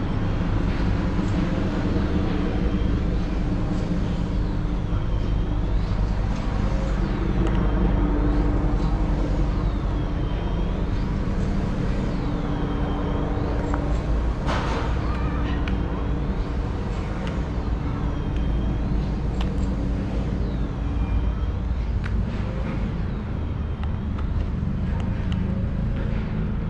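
Steady city street traffic: vehicle engines and tyres rumbling past, with a single sharp knock about halfway through.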